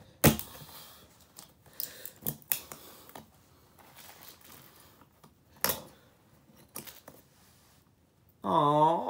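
The plastic housing and parts of a Sony cassette player clicking, scraping and knocking as it is pried and broken apart by hand. A sharp knock comes just after the start and another about six seconds in. Near the end there is a strained grunting voice.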